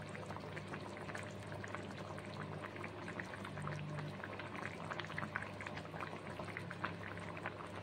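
Watery kohlrabi and potato curry boiling hard in a pan: a steady bubbling with many small pops, over a low steady hum.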